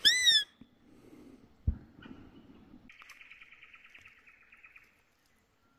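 A short, loud, high-pitched animal call that rises and falls in pitch, then a single thump about two seconds in, followed by a fast buzzing trill lasting about two seconds.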